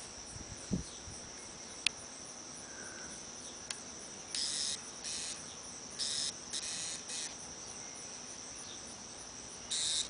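Insects trilling: a steady high-pitched drone with a faint even pulse, broken several times by short hissy bursts in the middle and again near the end.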